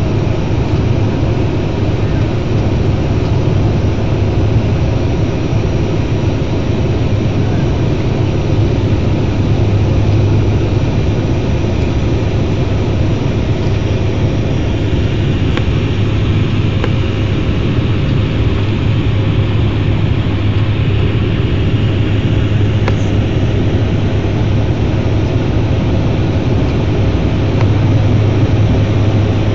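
Fokker turboprop's engine and propeller heard from inside the passenger cabin during landing. It is a loud, steady drone with a strong low hum, growing slightly louder near the end.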